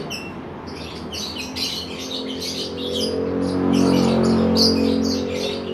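Many caged lovebirds and canaries chirping and tweeting continuously. Under them a low mechanical hum swells louder through the middle and stops near the end.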